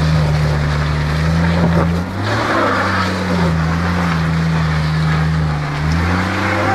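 Maruti Omni van's small three-cylinder petrol engine revving hard, its pitch rising and falling several times while the van is stuck in deep mud. From about two seconds in a rushing hiss joins it, the wheels spinning in the mud.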